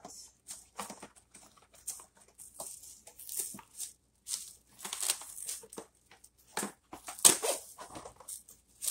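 Plastic cling wrap being pulled from its box and handled, crinkling and rustling in short irregular bursts, with sharper crackles a little past seven seconds in.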